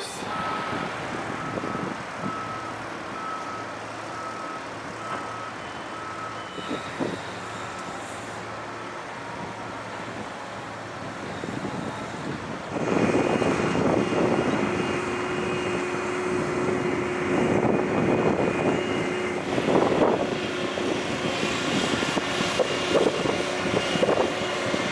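Engine noise from a passing vehicle or aircraft, steady at first, then much louder from about halfway through, with a steady hum.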